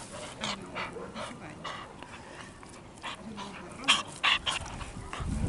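Small shaggy dog playing rough, mouthing a person's hand, with a string of short panting breaths, yips and whines; a couple of louder bursts come about four seconds in.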